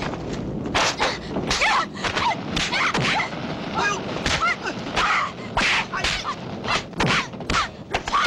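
Film fight sound effects: a rapid string of sharp punch and kick impacts, one every half second or so, mixed with short shouts, grunts and pained cries.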